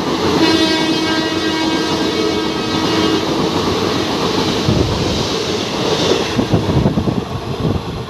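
Passenger train coaches rushing past at about 98 km/h. The electric locomotive's horn fades out over the first three seconds, then the wheels beat heavily over the rail joints through the second half.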